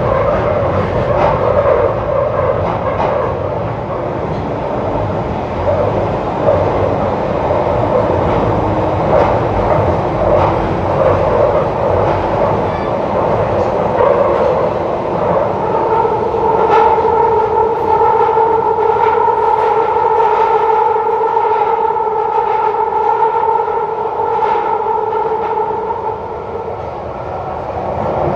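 Bakerloo line 1972 Tube Stock train running through a tunnel, heard from inside the carriage: a steady rumble with clicks of the wheels over rail joints. About halfway through, a steady high whine sets in and fades away near the end.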